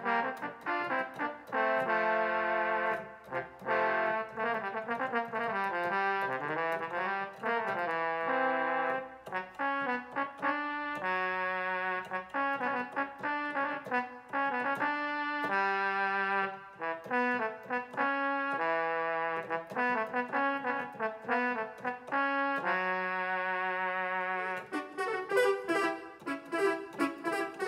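Roland XP-10 synthesizer being played: a melody over held chords, with quicker, denser notes near the end.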